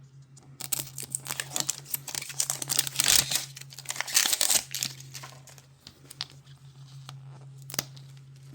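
Plastic wrap crinkling and tearing as the tear strip is pulled off a Mini Brands Minis capsule ball, busiest in the first half, then a few light plastic clicks. A steady low hum runs underneath.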